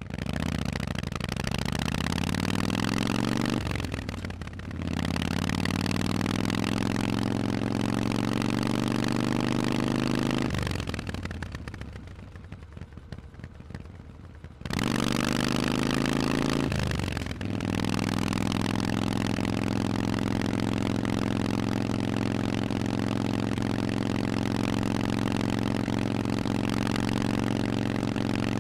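Harley-Davidson Forty-Eight's V-twin through a Vance & Hines exhaust, ridden on the road: it pulls with rising pitch and shifts up about four seconds in, then pulls again. In the middle, with the throttle eased off for about four seconds, the note falls and quietens. It then pulls hard once more, shifts again and settles into a steady cruise.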